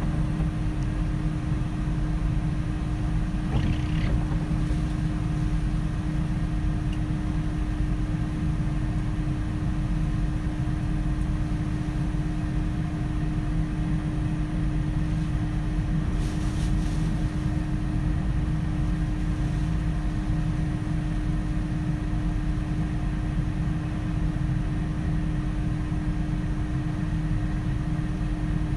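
Steady low rumble with a constant droning hum, unchanging throughout.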